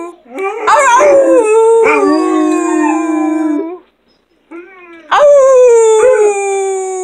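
Black Mouth Cur howling with other dogs joining in: two long howls, each starting high and sliding down in pitch, with several overlapping voices in the first and a short pause about four seconds in.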